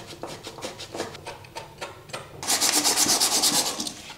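Inner/outer pipe reamer twisted around the outside edge of a cut copper pipe, scraping off the burrs with a quick run of small clicks. About two and a half seconds in, emery cloth is rubbed fast back and forth over the pipe end, a louder scratchy rubbing.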